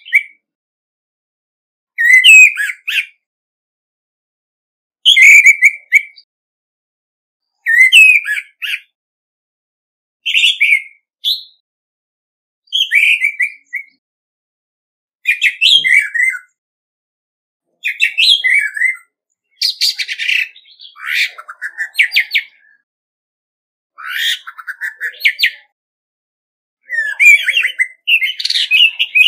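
A male orange-headed thrush singing its competitive territorial song: short whistled phrases every two to three seconds, with clean pauses between them. Past the middle the phrases grow longer, with fast runs of repeated notes.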